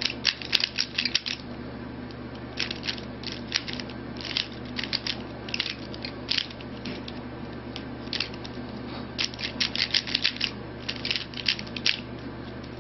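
Rubik's Cube being turned by hand during a solve: quick runs of plastic clicks as the layers turn, broken by short pauses between move sequences.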